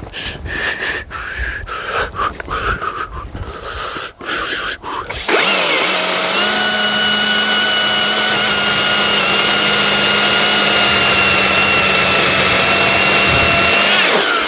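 A battery-powered chainsaw, first heard unevenly for about five seconds, then running at a steady full speed with a constant whine for about nine seconds before stopping just before the end.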